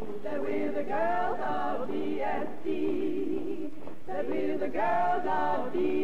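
A group of young women singing a sorority rush song together without instruments, holding long notes with a wavering pitch.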